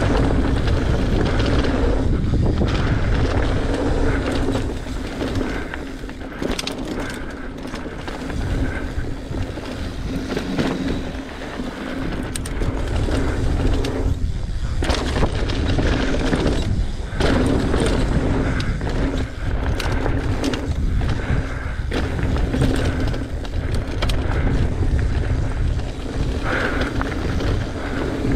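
Mountain bike running fast down a dusty, rocky dirt trail: tyres rumbling over the dirt and rocks, with wind buffeting the camera microphone and frequent knocks and rattles from the bike over rough ground.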